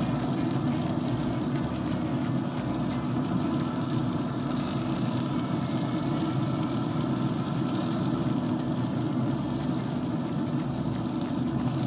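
Steady mechanical hum with a low drone and a few held tones: a Traeger pellet grill's fan running while the grill is hot.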